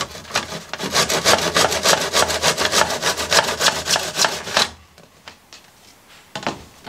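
Handsaw cutting a mitre through floor beading in a plastic mitre box: quick, even back-and-forth strokes that stop a little over halfway through, followed by a few light knocks near the end.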